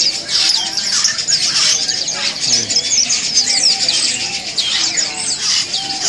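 Many caged birds chirping and twittering at once, a dense overlapping chorus of short high calls.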